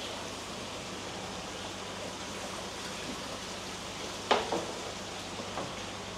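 Steady rush of running water, with a sudden sharp sound about four seconds in and a fainter one a little over a second later.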